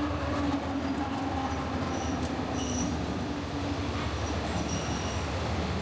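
Train running at the station: a steady, loud low rumble with a droning tone, and a few brief, faint high squeaks of wheels on rail.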